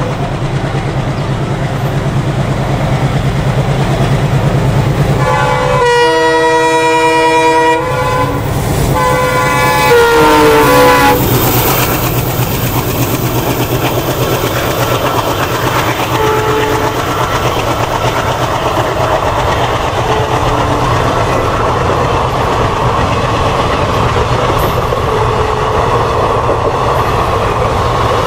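ALCo-type Indian Railways diesel locomotives running under power with a steady low engine chug. A horn sounds for about two seconds roughly six seconds in, and a second, shorter horn falls in pitch around ten seconds. The rest is the rolling noise of wheels on track with the engine rumble beneath.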